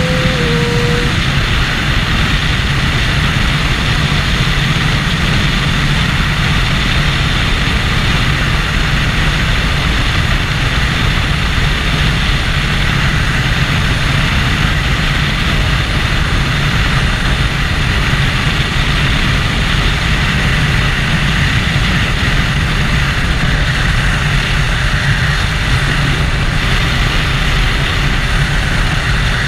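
Triumph Daytona 675's three-cylinder engine running steadily at a slow highway cruise through an Arrow exhaust, mixed with a constant rush of wind and road noise.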